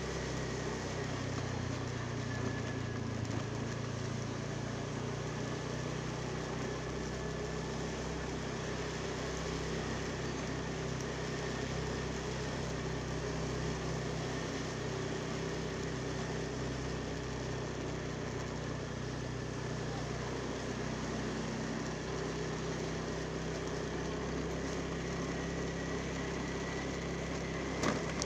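Steady engine and road noise of a vehicle being driven, an even hum that holds without change.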